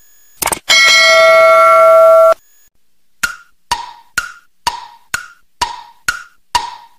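Intro-animation sound effects: a mouse-click sound, then a bright bell-like notification chime that rings for about a second and a half, then a countdown's tick-tock clicks, woody and even, about two per second.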